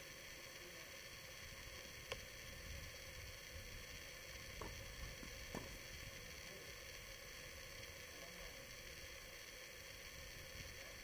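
Faint steady hiss from a built-in camera microphone, broken by a few faint sharp knocks: one about two seconds in and two more near the middle. The knocks are tennis balls being struck during a doubles rally.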